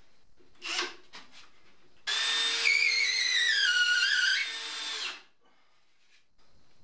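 Cordless drill running for about three seconds against an OSB panel, its whine falling steadily in pitch before it stops. A short knock comes about a second before it starts.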